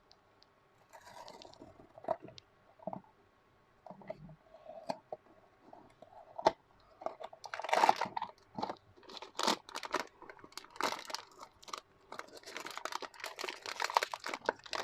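Blind box being unpacked by hand: cardboard handled and the inner wrapper crinkled and torn open. Scattered clicks and rustles at first, then dense crinkling from about halfway.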